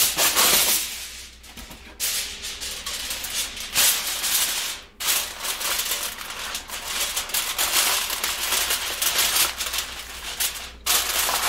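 Aluminum foil crinkling and rustling as it is handled and pressed over a baking pan to cover it, with a few brief pauses.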